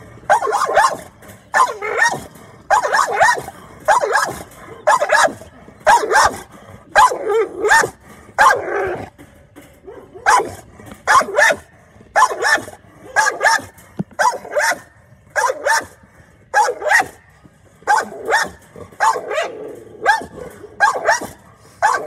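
An American Bully barking repeatedly, about one bark a second, with one short pause about nine seconds in. It is a dog on guard.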